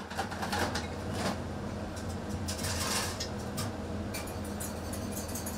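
Kitchen clatter: scattered clinks and knocks of dishes and utensils, busiest around the middle, over a steady low hum.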